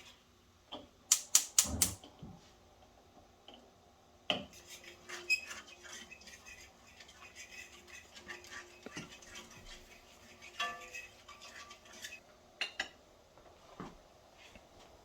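A utensil stirring milk gravy in a cast iron skillet, clinking and scraping against the pan in scattered strokes, with a quick run of sharp knocks about a second in.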